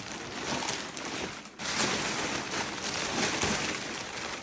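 Packaging being handled as a parcel is unwrapped: an irregular rustling and crinkling of plastic wrap and cardboard, with a brief lull about one and a half seconds in.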